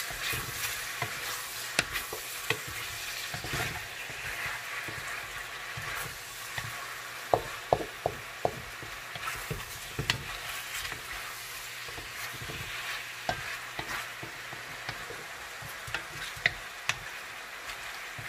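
Chicken wings sizzling in their juices in a pot while a utensil stirs and turns them, with sharp clinks against the pot now and then, several close together around eight seconds in.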